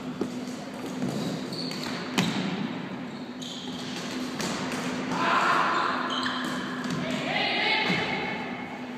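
Floorball play: plastic sticks clicking against the hollow plastic ball, with one sharp crack of a hit about two seconds in. Players' shoes move on the court floor, and players' voices call out.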